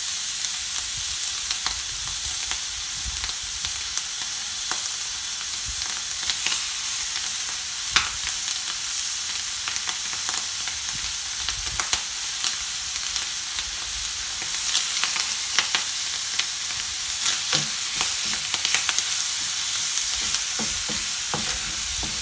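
Bacon strips sizzling as they fry in a pan: a steady high hiss dotted with small crackles and pops, which come more thickly in the second half. They are stirred now and then with a wooden spatula.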